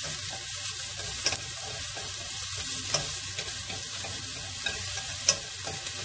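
Shallots and garlic sizzling in a little olive oil in a stainless steel pot while being stirred, with a few sharp clicks of the stirring utensil against the pot, the loudest about five seconds in.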